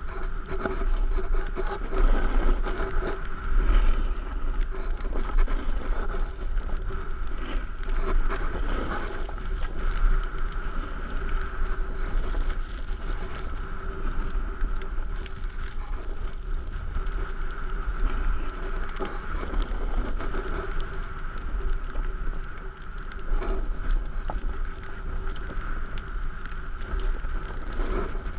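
Snowboard sliding over a snow-covered road while being towed on a rope: a continuous scraping hiss with a low rumble on the microphone and a steady hum underneath.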